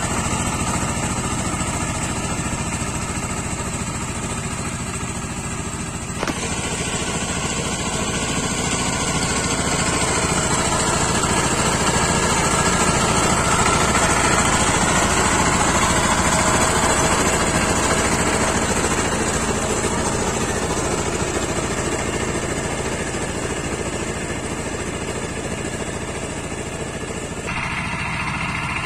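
Two-wheel walk-behind power tiller's single-cylinder diesel engine running steadily under load while rotary-tilling soil. It grows louder as the tiller comes close and fainter as it moves away. The sound changes abruptly twice, about six seconds in and near the end.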